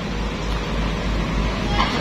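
Sumitomo SH210 excavator's diesel engine running with a steady low rumble, with a short brighter noise near the end.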